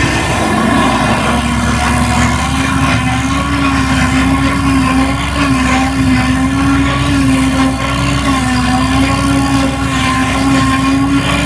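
John Deere 8600i self-propelled forage harvester chopping grass for silage, running alongside the tractor that pulls the wagon: a loud, steady mechanical drone from the engines and chopper that wavers slightly in pitch.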